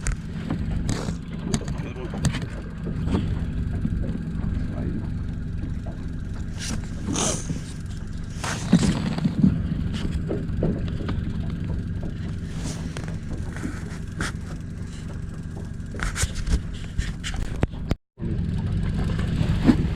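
Boat motor running steadily at trolling speed, a low even hum, with scattered knocks and handling noise on the boat. The sound cuts out for a moment near the end.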